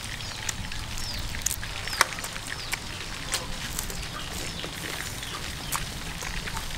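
Outdoor yard ambience: a few short bird chirps and scattered sharp clicks over a steady low hum.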